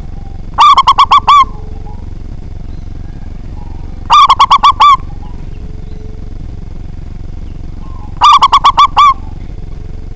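A local zebra dove (perkutut lokal) cooing loudly: three calls about four seconds apart, each a quick run of five or six notes.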